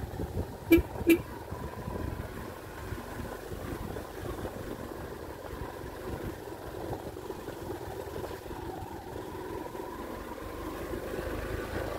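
Motorcycle engine running steadily while being ridden along a bumpy dirt trail, with two sharp knocks close together about a second in.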